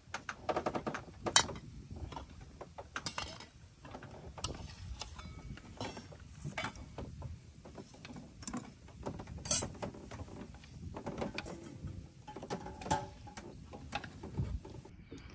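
Dishes and utensils being handled: irregular light clinks, clicks and knocks, a few ringing briefly.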